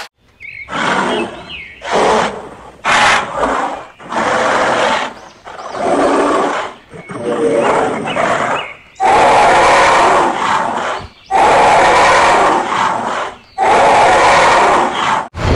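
Dubbed dinosaur roar sound effects: a run of about ten roars, short ones at first, then three long, loud ones in the second half.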